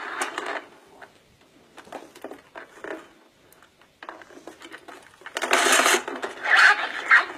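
Plastic See 'n Say toy being worked by hand: faint clicks as its pointer is turned, then a short, loud rasp from the pull lever about five and a half seconds in. The toy's recorded voice starts playing near the end.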